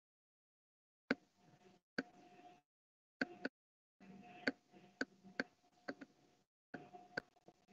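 About a dozen sharp, irregular clicks over a faint steady hum, heard through a video call's audio. The audio cuts to dead silence between bursts.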